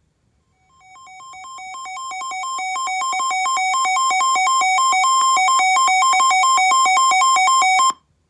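Weather radio alert alarm: two buzzy electronic tones alternating rapidly in a warble, growing louder over the first two seconds, then holding steady before cutting off abruptly near the end. It is the alarm that announces a new weather warning.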